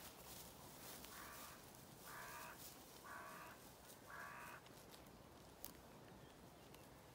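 A crow cawing four times, about a second apart, faint over a light hiss of wind in the grass.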